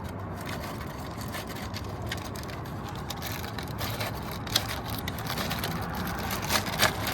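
Small bicycle repair parts being handled: rustling with a few sharp clicks, one about halfway through and more near the end, over a steady background noise.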